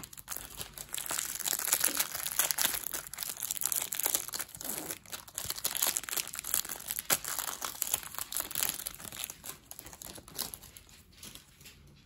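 Clear plastic wrapper of a hockey card pack crinkling as it is handled and torn open, a dense crackle that dies away about ten seconds in.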